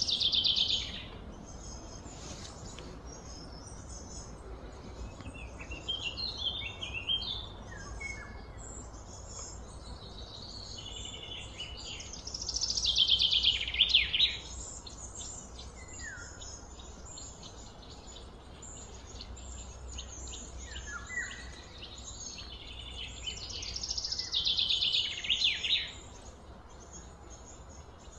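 Birds chirping and singing on and off, with three louder bouts of rapid chirping: one at the very start, one about halfway through and one near the end. A steady low hum lies underneath.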